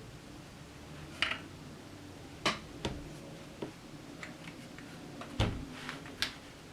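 Mechanical keyboard with lubed Cherry MX Black linear switches and ABS keycaps being typed on slowly: about nine separate keystrokes at irregular intervals. The stroke about five seconds in is the loudest, with a deeper thud.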